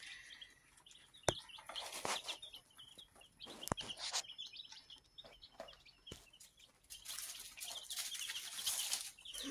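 Baby chicks peeping in a brooder: a constant flurry of short, high cheeps, with bursts of rustling and a couple of sharp clicks.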